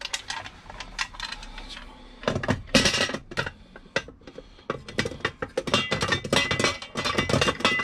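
Plastic cover of a small garage consumer unit being fitted by hand: a string of clicks, knocks and light rattles of plastic on plastic, with a louder cluster about two and a half seconds in and quicker clicking and rattling from about five seconds on.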